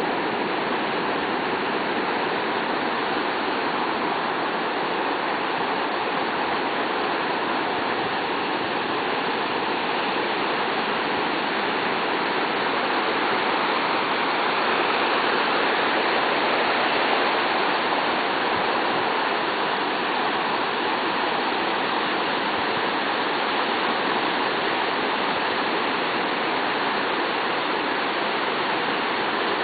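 Ocean waves breaking and washing onto a sandy beach in a steady, continuous rush, growing a little louder around the middle.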